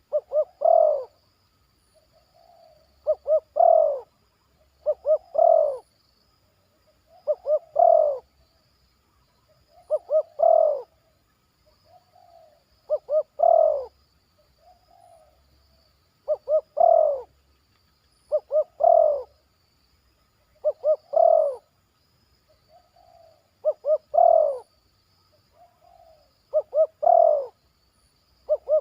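Spotted dove cooing over and over, a phrase every two to three seconds: two or three quick short notes followed by one longer, louder note, the full 'batuk' and 'poin' song that tekukur keepers listen for. Softer, shorter coos fall between the phrases.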